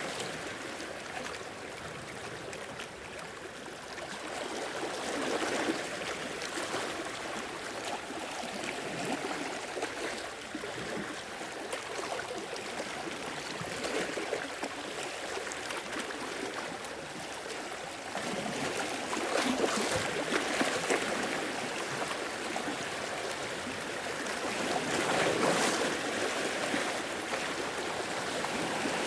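Small sea waves washing and swirling against rocks and sand, with gurgling and trickling water between swells that rise and fall every few seconds; the strongest surges come about a third of the way in and again near the end.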